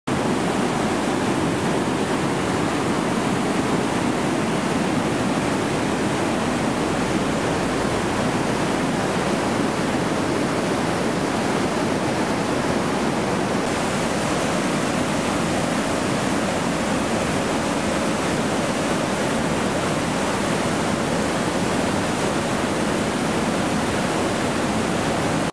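Floodwater pouring through a small dam's spillway openings and churning below as fast whitewater: a steady, loud rush. Its tone shifts slightly about halfway through.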